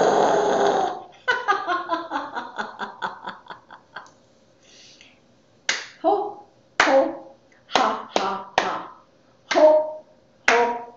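A woman's loud, breathy lion-roar laugh, followed by a quick run of laughter that fades out. After a short pause she chants a rhythmic 'ho, ho, ha, ha, ha' laughter-yoga warm-up, clapping her hands on the beats.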